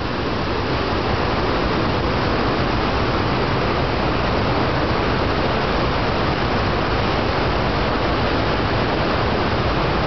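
Steady, loud rushing of whitewater rapids and a waterfall.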